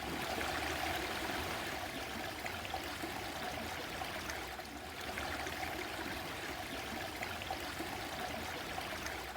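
A small stream running and trickling steadily over rocks.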